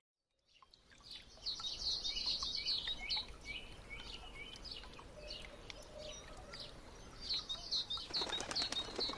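Wings flapping as a flock of white doves takes off, starting about a second in, with many short, high chirps of birds throughout.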